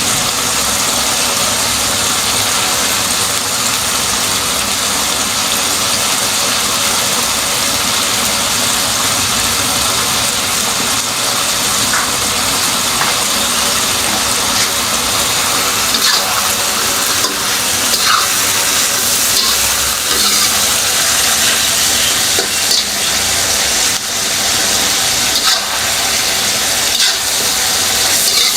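Black pepper chicken cooking in a pan, sizzling steadily over a steady hum, with the occasional scrape and clink of the stirring utensil from about halfway through.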